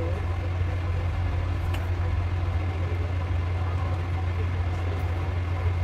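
A steady low hum at an even level.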